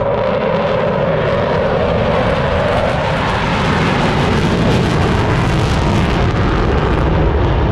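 Blue Angels F/A-18 Super Hornet jets flying overhead: a loud, steady jet roar.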